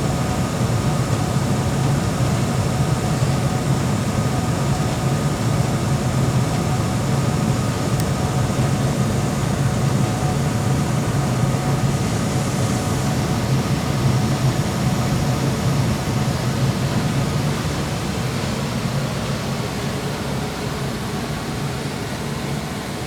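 Rheem Classic Series 80% single-stage gas furnace running: a steady low hum with faint steady tones above it, easing off slightly near the end.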